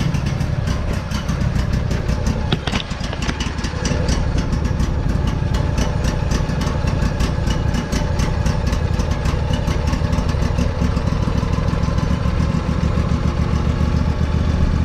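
Old riding lawn tractor's small engine running just after a cold start, sputtering on choke, then picking up and running louder and steadier about four seconds in as the sticking choke is pushed off. A short click comes shortly before it steadies.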